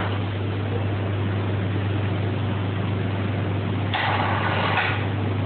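Steady low machine hum over a constant noise bed; about four seconds in, a rush of higher-pitched noise starts and lasts about a second.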